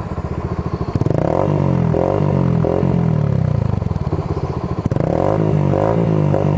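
Suzuki GSR 150 single-cylinder four-stroke engine with an aftermarket Roncar SS Oval exhaust, revved in quick repeated throttle blips, the pitch rising and falling with each. The revving starts about a second in, eases off, and comes back in a second run of blips near the end.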